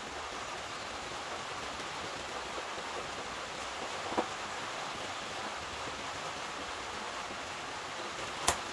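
Steady hiss of rain falling on a carport roof, with a faint click about halfway through and a sharper click near the end.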